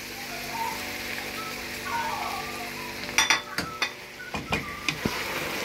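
Potato and cauliflower curry sizzling in the pot, then from about three seconds in a spoon stirring it, with a series of knocks and scrapes against the pot.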